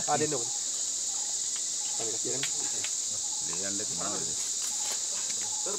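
Steady high-pitched drone of an insect chorus, with faint human voices briefly about two and four seconds in.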